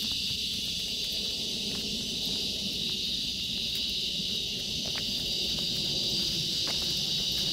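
Steady, unbroken high-pitched chorus of insects singing, over a low uneven rumble of wind and walking noise.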